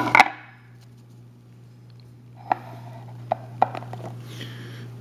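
Trading cards and their packaging being handled: a sharp knock right at the start, then a few separate sharp clicks and a brief rustle, over a steady low hum.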